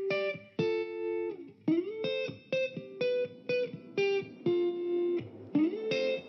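Background music: a guitar playing separate plucked notes and short phrases, with a couple of notes sliding upward.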